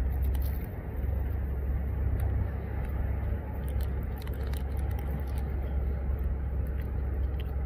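Steady low background rumble, with faint wet clicks from someone chewing a mouthful of sandwich.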